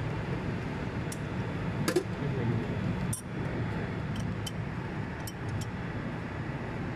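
Steady low hum of running industrial machinery, with scattered light metallic clicks and taps, about seven of them, from hands and tools working on a chiller's sensor terminal fitting.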